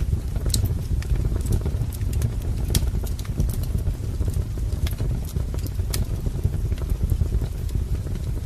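Wood fire crackling in a fireplace: a steady low rumble of burning logs with scattered sharp pops and snaps, about one a second.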